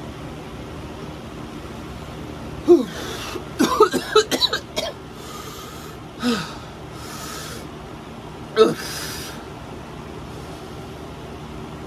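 A person coughing, gasping and blowing out sharp hissing breaths in about four short bouts, reacting to the burn of a super-hot pepper chip.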